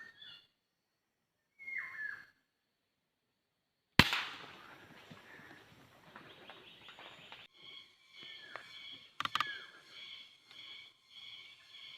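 A single sharp crack of a Sharp Tiger pneumatic air rifle shot about four seconds in, amid short whistled bird calls that fall in pitch. A quick pair of sharp clicks follows later, near the end of the second third.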